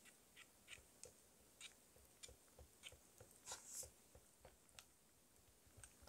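Silicone whisk stirring thick cream-cheese batter in a glass bowl: faint, irregular soft taps and squelches, with a slightly louder cluster a little past halfway.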